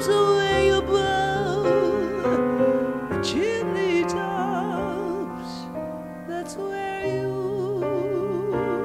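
Music: a slow melody with heavy vibrato over sustained piano chords.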